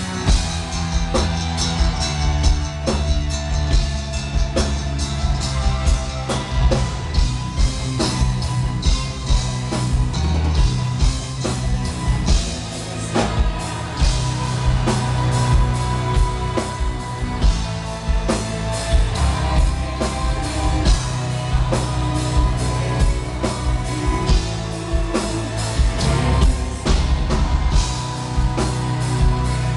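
A live metal band playing loud, with fast, dense drumming, heavy bass and guitars, and a female and a male vocalist singing, heard from the audience.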